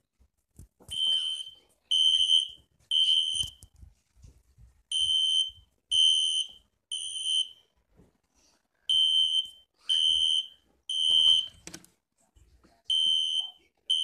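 Fire alarm sounding a high, steady beep in the temporal-three pattern: three beeps about a second apart, a pause, then repeated. This is the standard evacuation signal.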